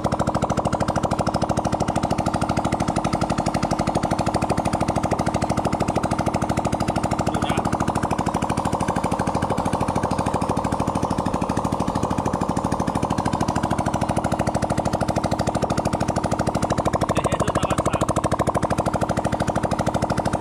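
Yamaha Y16's single-cylinder four-stroke engine running steadily with no exhaust fitted, a rapid, even train of open-header firing pulses, driving the newly aligned chain and rear sprocket.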